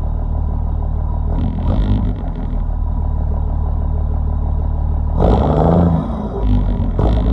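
Cummins turbodiesel engine running with a steady turbo whistle over it, revved briefly three times: about one and a half seconds in, around five seconds in and near the end.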